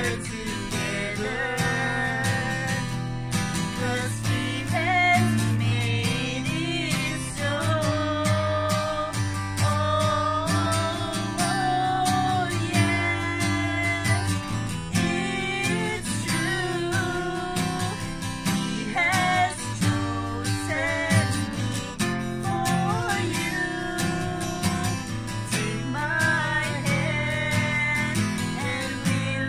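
A man and a woman singing together to a strummed acoustic guitar.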